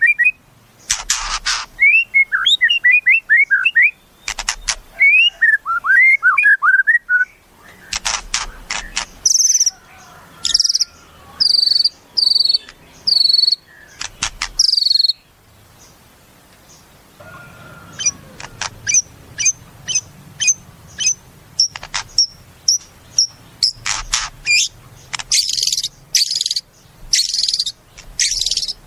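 White-rumped shama (murai batu) singing a loud, varied song: quick runs of rising chirps, loud harsh rattling strokes and clear high whistles, then after a short pause a fast series of short high notes broken by more harsh strokes.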